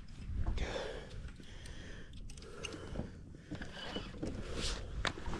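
Wind rumbling on the microphone out on open water, with faint handling knocks and one sharp click about five seconds in.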